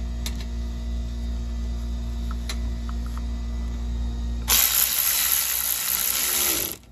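A steady low hum, then about four and a half seconds in an impact driver on a long extension bar runs for about two seconds with a loud hissing noise, driving in a bolt of the plastic engine undertray, and stops abruptly.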